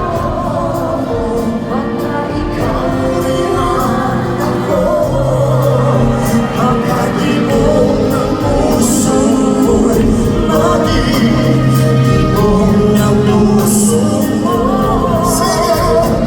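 Live concert performance: a singer with band accompaniment, the sound filling a large arena.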